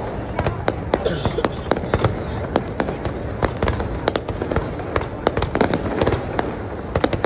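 Fireworks display: many sharp bangs and cracks in quick, irregular succession, several a second, over a steady low rumble.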